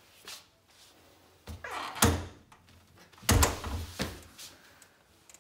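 Practice-room door being pushed shut and banging against its frame twice, about a second apart, with a lighter knock after. The latch does not catch and the door springs back open.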